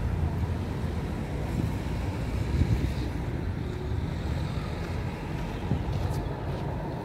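Steady low vehicle rumble with wind buffeting the microphone.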